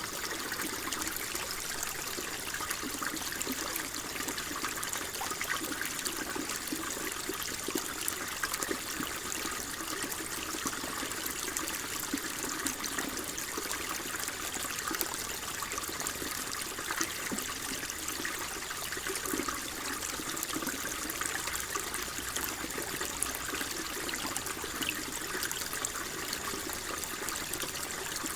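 Water flowing and trickling steadily, a continuous babbling rush with no pauses or changes.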